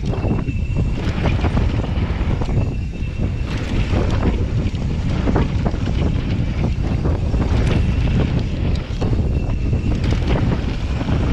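Wind buffeting the microphone of a Santa Cruz Nomad mountain bike descending a dirt trail at speed, over tyre noise on the dirt and frequent rattles and knocks from the bike over bumps.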